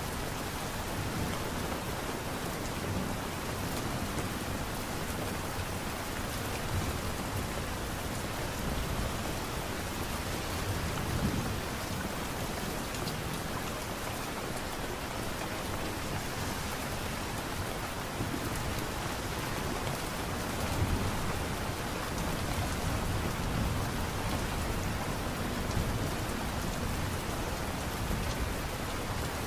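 Steady light rain, an even hiss of falling drops, with a low rumble that swells slightly now and then.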